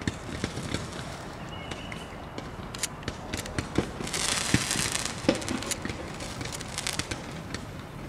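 Fireworks going off: scattered sharp pops and crackles, with a brief hiss about four seconds in as a shell goes up.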